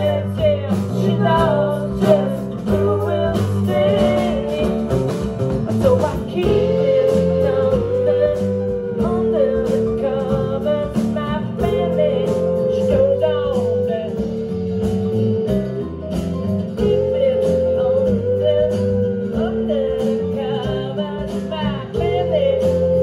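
Live acoustic band playing: strummed acoustic guitars over a drum kit, with a melody of long held, slightly wavering notes repeating in phrases.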